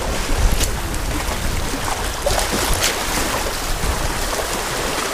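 Seawater washing and lapping at the shore, an even rushing noise with a low rumble underneath.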